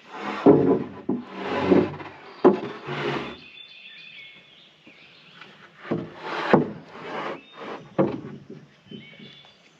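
Sawmill-cut wooden boards being handled: two spells of wood scraping and sliding against wood, each with a couple of sharp knocks.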